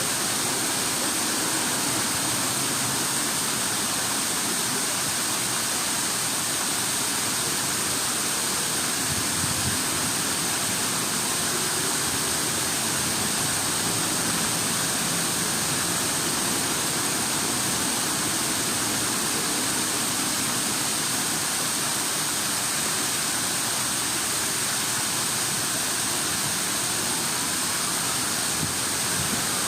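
Running water making a steady, even rush, like a fountain or cascade.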